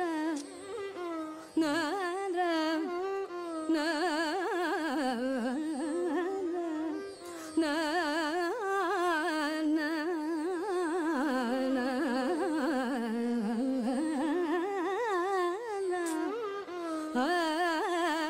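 Background Carnatic-style music: a single melody line with heavily ornamented, constantly wavering pitch over a steady drone.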